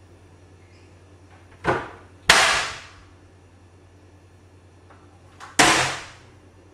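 Loud knocks and bangs from a wooden kitchen cupboard door: two knocks close together about two seconds in, then a sharp bang a little over five seconds in as the door swings open, each with a short ringing tail. A steady low hum lies underneath.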